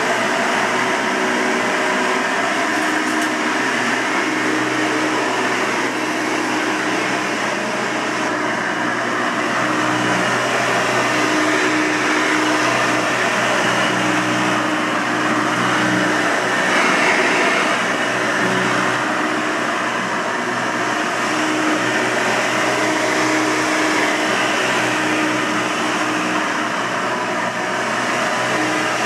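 A 1992 Hoover Elite 200 bagged upright vacuum cleaner running steadily, its motor giving an even whirring hum that swells and dips slightly.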